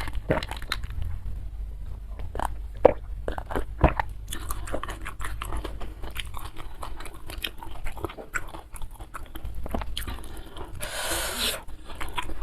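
Close-miked chewing and crunching of a mouthful of food, with many sharp crisp bites and a louder rustling crunch about eleven seconds in.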